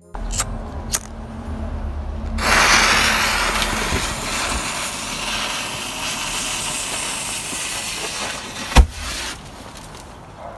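Two light clicks, then homemade magnesium–potassium nitrate flash powder catching with a loud fizzing hiss and throwing sparks for about seven seconds. There is one sharp crack near the end, the loudest sound, and then the hiss dies down.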